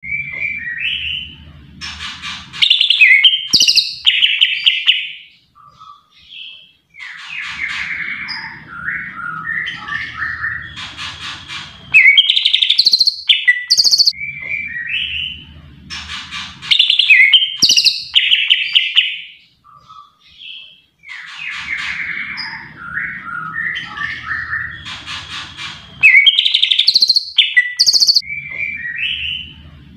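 Greater green leafbird (cucak ijo) singing loudly: long runs of varied whistles, chirps and chattering notes, broken by short pauses. A low hum lies under some stretches.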